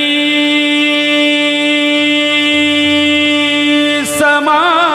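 Devotional abhang singing: a male voice holds one long steady note over harmonium accompaniment. About four seconds in it breaks into a wavering, ornamented melodic run.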